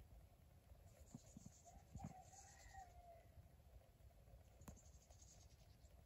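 Near silence: faint garden ambience with a distant rooster crowing once, about two seconds in, and a few faint taps.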